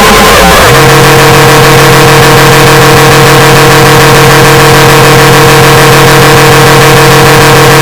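Scream sound effect played extremely loud and harsh, near full scale: one long held cry that jumps in pitch about half a second in, then holds one flat pitch.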